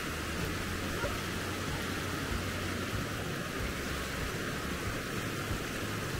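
Wind blowing over the microphone: a steady rushing hiss with an uneven low rumble underneath.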